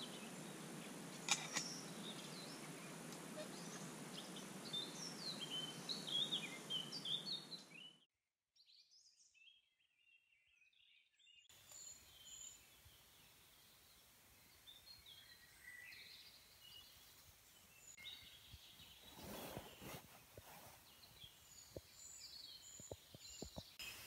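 Woodland birds singing and chirping, with a gap of near silence about eight seconds in. After it, fainter dawn birdsong with a few soft taps near the end.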